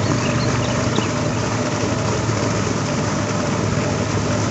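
A steady, constant low engine-like hum with an even hiss over it, unchanging throughout.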